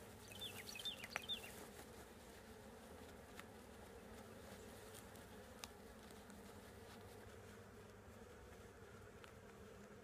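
Faint, steady buzzing of honey bees around the hive, with a few short high chirps about a second in and an occasional light click.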